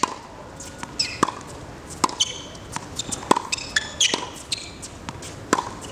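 Tennis ball being struck by rackets and bouncing on a hard court during a quick rally: a string of sharp pops, roughly one to two a second, some with a short ringing ping.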